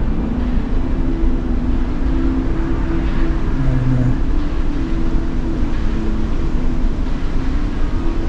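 Steady low rumble with a droning hum from a cruise ship's deck machinery, such as ventilation fans, and a brief lower tone about three and a half seconds in.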